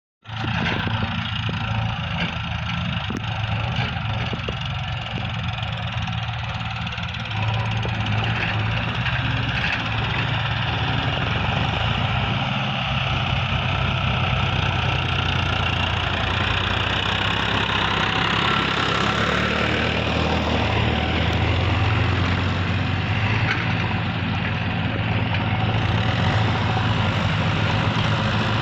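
Diesel engine of a JCB backhoe loader running steadily while the machine works, a little louder from about seven seconds in.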